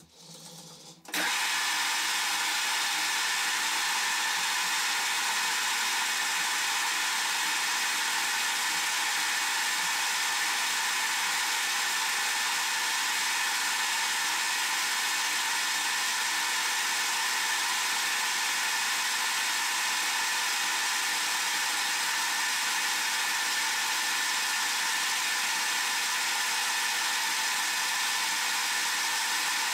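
Harrison M300 metal lathe running at a steady speed, facing the back of a brass workpiece; a constant motor and gear whine starts about a second in and holds steady.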